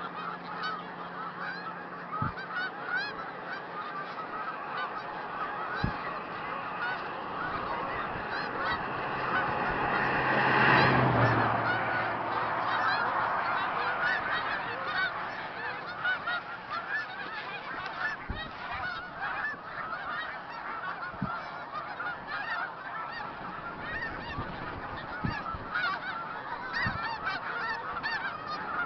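A large flock of snow geese calling, a dense chorus of many overlapping honks that swells louder about ten seconds in and then settles back.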